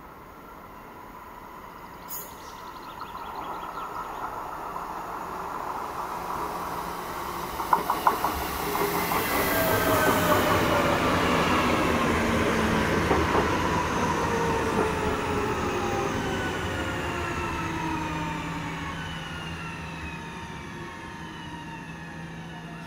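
Västtrafik X61 electric multiple unit running in and braking toward a stop. It grows louder as it approaches, its wheels clatter over rail joints about a third of the way in, and a falling electric whine follows as it slows.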